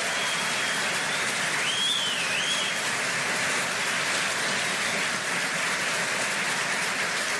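Audience applauding steadily in a lecture hall, with a brief whoop about two seconds in.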